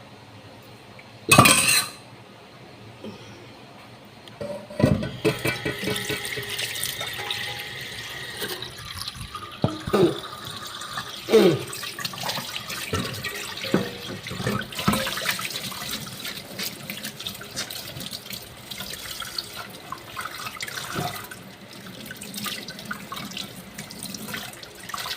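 Washing dishes at a sink: a tap running with water splashing, and small knocks of dishes and utensils handled in the water. A short loud burst comes about a second in, and the water runs steadily from about five seconds in.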